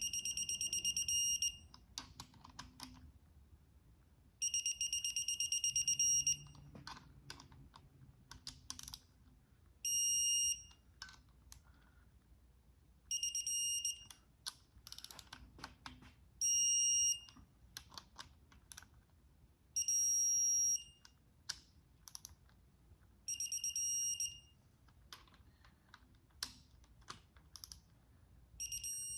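Digital torque wrench beeping each time a rocker arm bolt reaches its set torque of 22 ft-lb, with short ratcheting clicks between the beeps as the next bolt is run down. There are about eight high, steady beeps, each a second or two long, roughly every three seconds.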